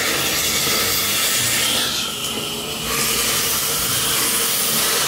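Smoke bomb hissing steadily as it pours out smoke, starting abruptly, with a brief change in the hiss about two seconds in.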